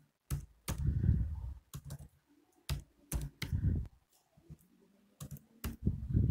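Typing on a computer keyboard: a dozen or so sharp, irregular keystrokes in short runs with pauses between them, some with a dull thud.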